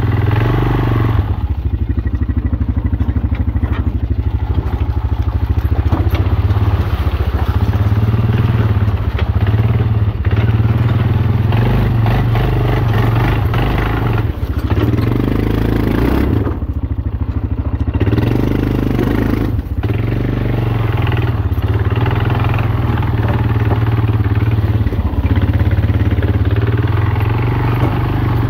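Honda FourTrax 250 ATV's single-cylinder four-stroke engine running under load, its note varying with the throttle, while brush clatters and scrapes against the machine.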